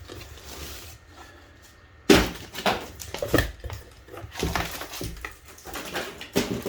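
Cardboard packaging being handled as a power tool is unpacked: a string of irregular rustles and knocks starting about two seconds in, the first knock the loudest.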